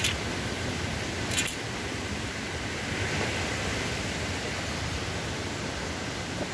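Steady rushing of river water and falls, an even hiss. Two brief knocks near the start, one right at the beginning and one about a second and a half in.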